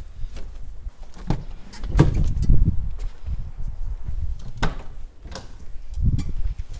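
A car's doors being handled: a few heavy thumps as a door is shut and sharp latch clicks as the front door handle is pulled open.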